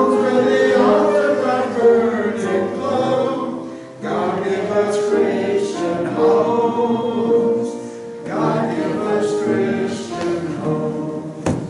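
A congregation singing a hymn together in phrases of a few seconds, with short breaks between the lines; a sharp click near the end.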